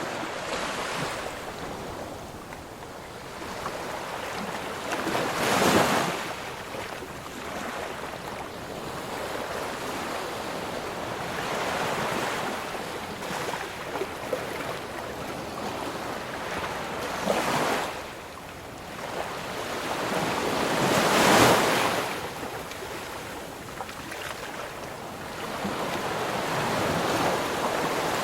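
Ocean waves washing onto a shore in a steady surf hiss, with a few louder breakers swelling and fading: about 6 s in, about 17 s in and loudest about 21 s in.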